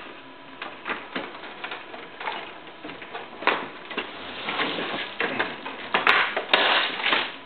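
Plastic scanner glass frame and cover of an HP LaserJet 3300-series printer being handled and fitted back together: irregular scraping and clicking, busier and louder in the second half, with a few sharp clicks near the end as the parts are pushed into place.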